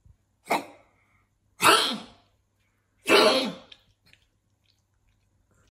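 A pug sneezing three times, a little over a second apart, each sneeze falling in pitch.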